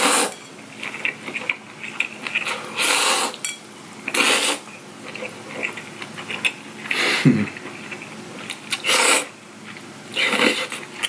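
Cold spicy bibim-myeon noodles being slurped up from the bowl: about six short, loud slurps every one and a half to two seconds, with quieter chewing between them.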